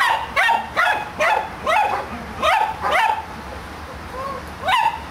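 Border collie barking in a quick run of short, high-pitched barks, each dropping in pitch, about two a second, with a pause of about a second past the middle.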